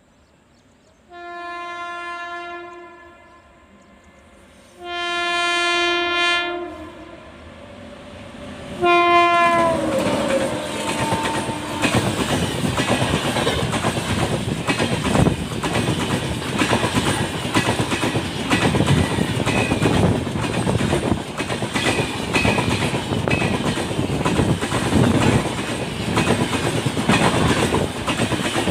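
Horn of a WAP7 electric locomotive, sounded in two long blasts and then a short third blast whose pitch drops as the locomotive passes. Then the express train rushes past at speed, its wheels clattering over the rail joints.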